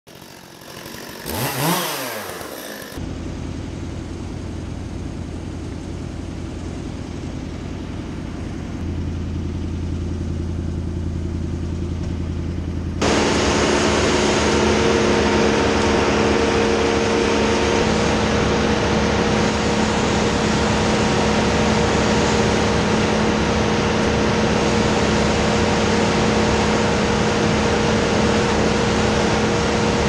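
A short sweep rising and falling in pitch in the first seconds, then a low steady engine hum. About 13 seconds in, it cuts abruptly to a louder engine running steadily with a constant drone.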